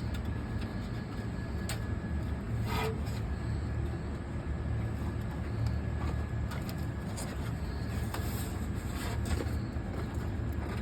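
Cardboard baler's motor running with a steady low hum, with scattered light clicks and knocks of metal parts being handled.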